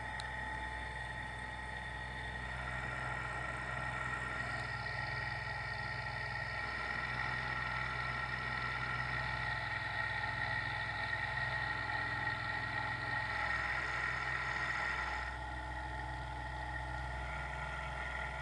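Metalworking machine tool running steadily, a low hum under several held whining tones. The tones shift about two and a half seconds in and again about fifteen seconds in.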